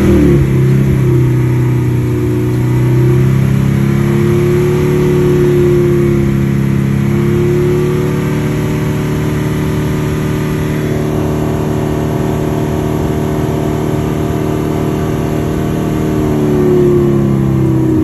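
Ford Mustang GT's 5.0 V8 held at a steady raised rpm, the pitch wobbling slightly, then easing down near the end. The engine is being held above the threshold speed for the PCM's crankshaft-position misfire-profile relearn after a clutch job.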